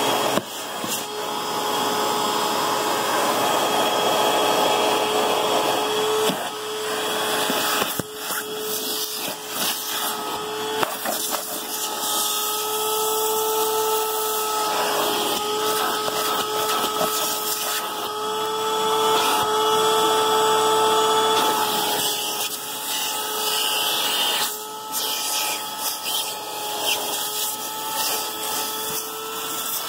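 Vacuum cleaner running with a crevice nozzle sucking over car carpet and upholstery: a steady motor whine over rushing air, its pitch and loudness wavering as the nozzle is moved, with a few sharp knocks of the nozzle against the trim.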